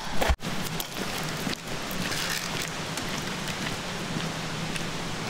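Steady hiss of rain falling on wet tarmac, with a brief thump right at the start.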